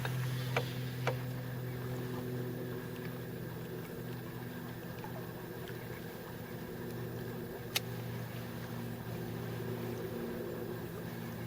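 Boat motor running steadily with a low hum. A few sharp clicks sound over it, the sharpest about eight seconds in.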